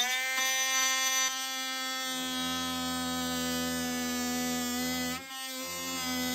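Cordless oscillating multi-tool running at a steady high-pitched buzz, its wide plunge-cut blade cutting into the wooden edge of the lid to cut out a cabinet lock. The buzz dips briefly just after five seconds, then runs steady again.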